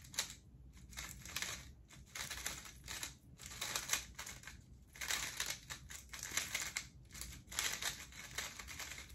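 X-Man Tornado V3 magnetic 3x3 speedcube being turned fast during a speedsolve: quick runs of rasping plastic clicks from the turning layers, broken by short pauses.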